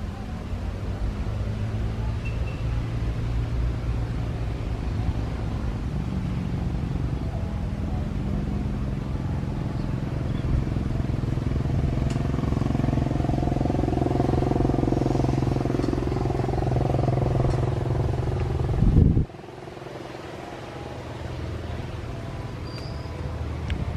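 Jet airliner engines running, a steady low rumble with a whine that grows louder, cut off abruptly about 19 seconds in, after which a quieter rumble continues.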